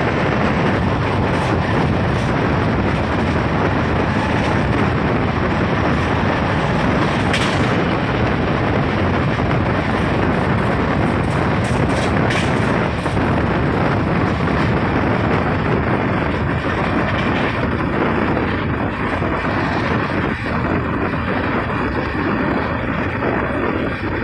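Kaifiyat Superfast Express passenger coach running at speed: a loud, steady rush of wind over the microphone mixed with wheels running on the rails, with a few sharp clacks from the track. The hiss eases slightly over the last few seconds.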